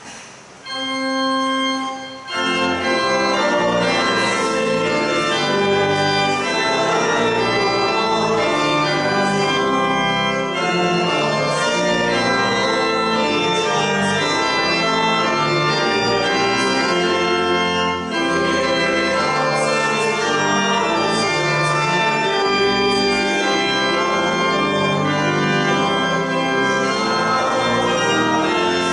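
Church organ playing: a single held note about a second in, then full sustained chords that change steadily through the rest.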